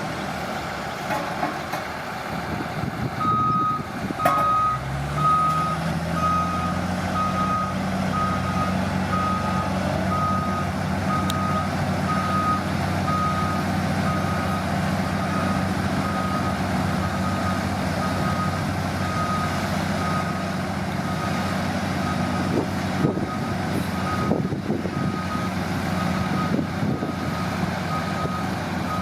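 Heavy construction machine's diesel engine running, its pitch rising as it revs up about four seconds in, while its reversing alarm beeps about once a second from about three seconds in.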